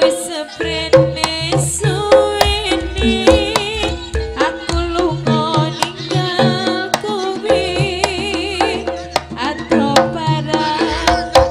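Live Javanese jaranan gamelan music. Frequent hand-drum strokes and struck, pitched metal percussion play under a wavering high melody line, and a deep low tone sounds in long stretches.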